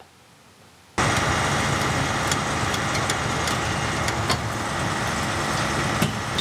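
A heavy truck engine starts up loudly and suddenly about a second in and keeps running steadily, with a few sharp knocks and clanks, as the overturned semi-truck is pulled back upright.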